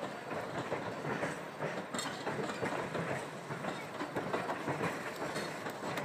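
Narrow-gauge passenger coaches and open excursion cars rolling across a wooden trestle: a steady rolling noise of the wheels on the rails with irregular clicks.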